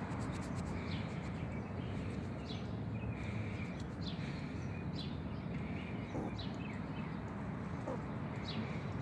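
Short high chirps, each falling in pitch, come irregularly about once a second over a steady outdoor background hiss. Runs of fine rapid clicking sound in the first few seconds.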